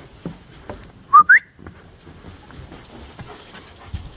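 A person whistles once, a short rising two-part call about a second in, calling dogs. Faint irregular ticks and rustles run underneath.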